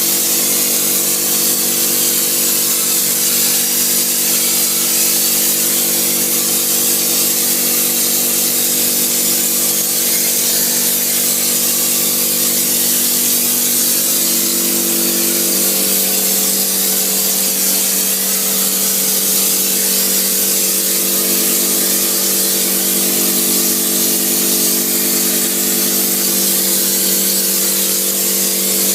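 Machinery running steadily: a constant hum with a strong high hiss over it, the hum's pitch shifting slightly about halfway through.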